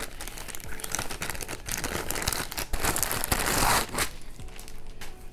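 Clear plastic packaging bag crinkling and rustling as it is opened and a wig is pulled out of it, loudest about three to four seconds in.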